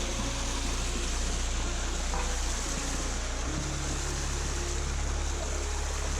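Background music with sustained low bass notes that change pitch about halfway through, over a steady rushing hiss.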